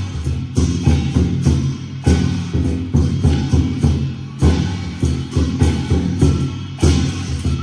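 Music with a steady percussion beat, sharp strikes about twice a second over sustained low tones.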